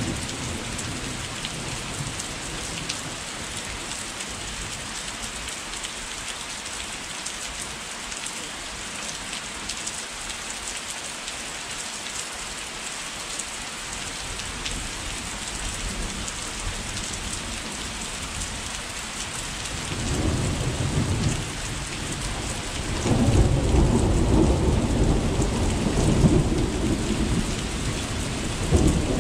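Steady rain falling, with thunder. A rumble fades out at the start. Thunder rumbles again about twenty seconds in, then a few seconds later a louder, longer roll follows.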